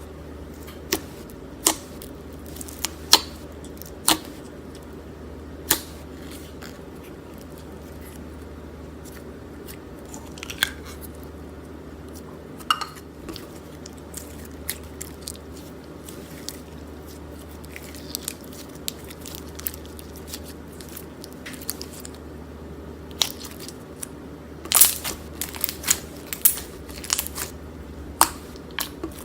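Slime being squeezed and worked by hand: scattered sharp pops and crunchy crackles, coming thicker near the end.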